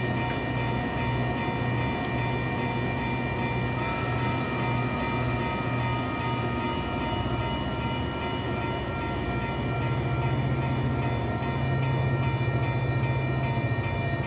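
Train passing, a steady rumble and low engine drone that grows a little louder about ten seconds in.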